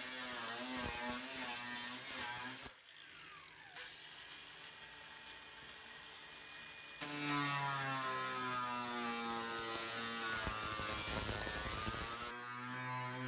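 Angle grinder with a cutoff wheel cutting through a car's sheet-steel hood, its motor whine wavering in pitch as it bites. About three seconds in it is let off and winds down with a falling whine. About seven seconds in it starts up again and cuts on, with a rougher grinding rasp near the end.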